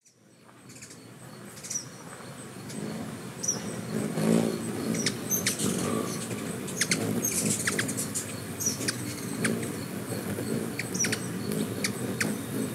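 Ruby-throated hummingbirds hovering at a feeder: the fluttering hum of their wings, swelling as birds come close, with short high chip notes every second or so. The sound fades in over the first couple of seconds.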